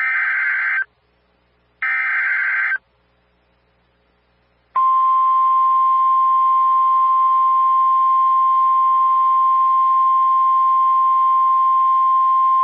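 NOAA Weather Radio flash flood warning alert. First come two short bursts of the SAME digital header, about a second each and a second apart. After a gap of about two seconds, the steady single-pitch 1050 Hz Warning Alarm Tone starts and holds, signalling that a warning is being issued.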